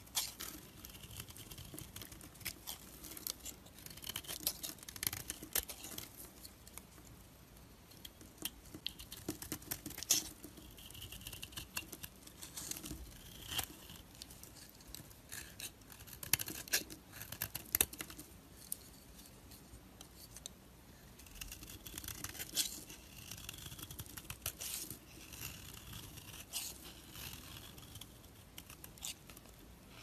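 A small knife blade scraping and shaving the surface of a bar of dry soap, in quick, irregular scraping strokes.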